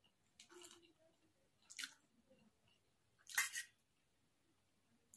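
A person slurping up forkfuls of noodles and chewing, with three short slurps, the loudest about three and a half seconds in.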